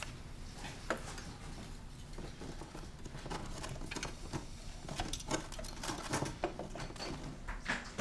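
Light clicks, taps and rustles of hands handling wires and metal parts in a car's engine compartment, getting busier about five seconds in.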